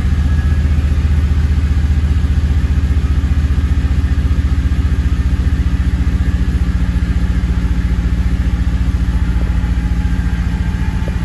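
Holden Commodore's 5.7-litre LS1 V8 idling steadily through a 3-inch stainless exhaust, with a deep, even throb.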